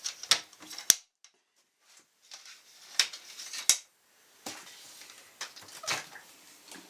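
Scattered sharp clicks and knocks of the cyclone dust separator and its bin being handled and opened. The loudest knocks come about a second in and again around three seconds in.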